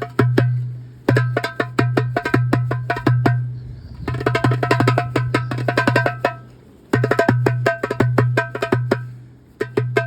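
Darbuka (Egyptian goblet drum) played in fast phrases of crisp, sharp strokes over a deep, ringing low tone, with short pauses between phrases and a dense roll of strokes in the middle.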